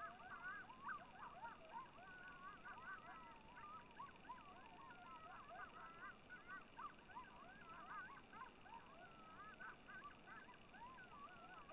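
A pack of coyotes howling and yipping together, many faint calls wavering up and down in pitch and overlapping.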